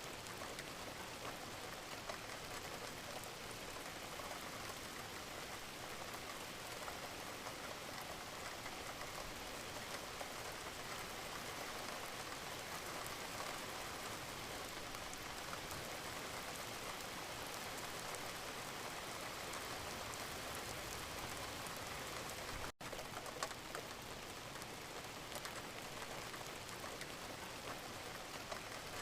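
Steady rain, an even hiss full of fine, fast raindrop ticks. It cuts out for an instant about 23 seconds in, then carries on unchanged.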